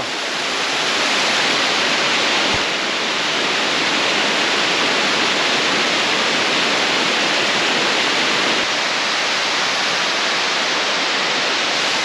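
Waterfall in heavy flow: a loud, steady rush of falling water with no change in level.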